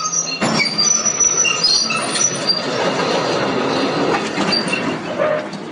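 Metal squealing and screeching in short high tones over a continuous clattering rumble, with a few sharp knocks.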